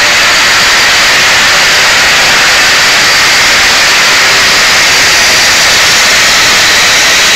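Electric angle grinder running loud and steady at full speed, its disc then cutting into a steel shelving upright in the second half.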